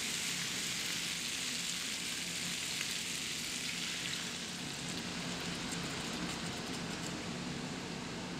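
Food sizzling in a frying pan: a steady frying hiss that eases a little about halfway through.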